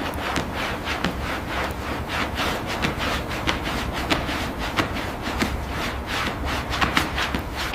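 Repeated rubbing strokes back and forth over a surface, about three or four a second, over a steady low rumble.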